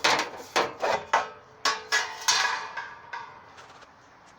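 Sheet-metal clanks and knocks: about seven sharp hits in the first two and a half seconds, then lighter rattling and scraping, as a replacement rocker panel is worked loose from the truck's body.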